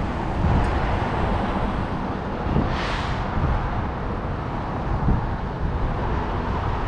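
Wind rumbling on the microphone over the low running of semi-truck engines, with a short hiss that swells and fades about three seconds in.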